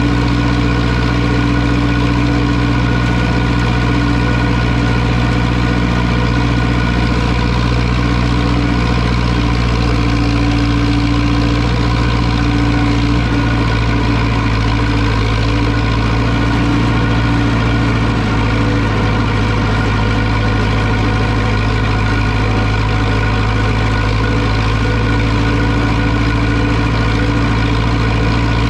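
Zetor 6245 tractor's diesel engine running steadily at constant speed.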